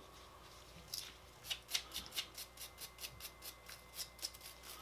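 Small wire brush scrubbing an AR-15's solvent-soaked firing pin and cam pin: a run of light, quick scratchy strokes, several a second, starting about a second in.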